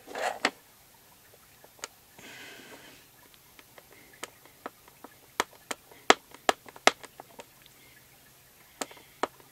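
Linoleum stamp being dabbed on an ink pad: a run of sharp, irregular taps, loudest about six to seven seconds in, with two more near the end. A short sniff comes about two seconds in.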